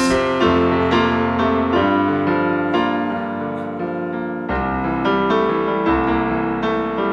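Digital stage piano playing an instrumental passage between sung lines, its chords changing about every second.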